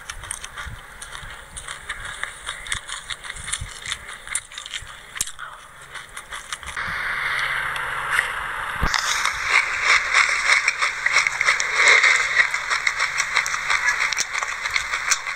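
Dry sesame seeds being chewed close to the microphone: dense small crunches and crackles, with a spoon scraping through the seeds. About seven seconds in, the crunching jumps to louder and denser.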